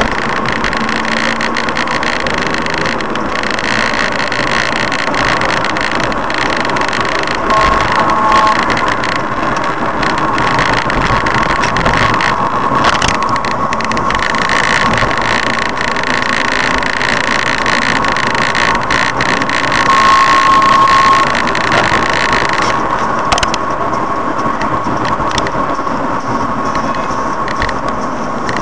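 A car driving on an open road, heard from inside the cabin: steady engine and tyre noise with a constant faint whine. A short high tone sounds twice, about eight and twenty seconds in.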